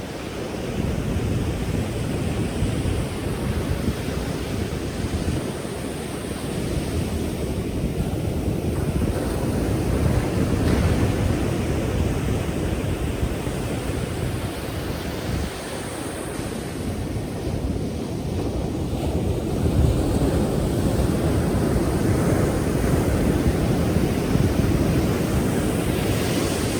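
Powerful ocean surf: waves breaking and washing in a continuous rush, swelling louder and easing off as the sets come in.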